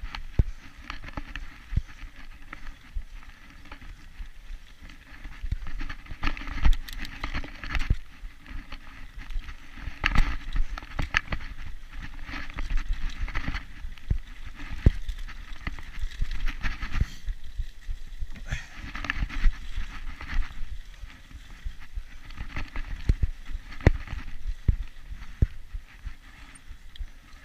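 A mountain bike being ridden over a rough dirt trail: steady tyre noise, with frequent irregular knocks and rattles as the bike goes over bumps.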